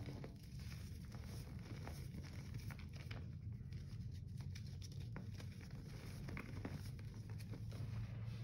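Hands working loose Comet scouring powder: soft pattering as the powder falls from the fingers, and small scattered crunches as caked lumps and a pressed slab are handled and pressed into it. A low steady hum runs underneath.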